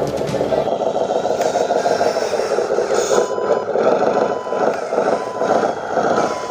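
Small electric motor and gearbox of a radio-controlled truck running under load, with some scraping and clattering.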